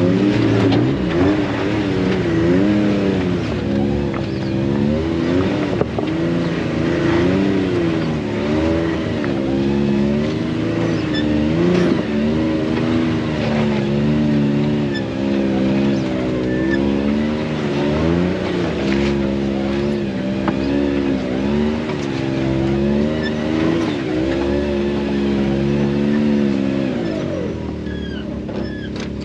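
Side-by-side UTV engine revving up and down in repeated waves, throttle worked on and off while crawling up a rock garden climb.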